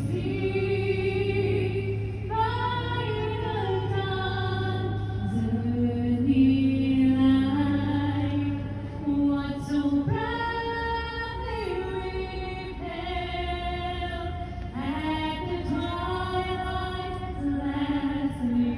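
A group of voices, mainly women's, singing a slow song with long held notes that glide between pitches.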